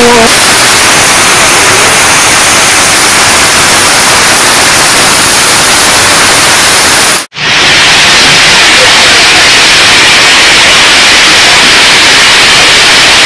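Heavy rain pouring down: a loud, steady rush of noise, broken by a brief drop-out about seven seconds in before another stretch of downpour.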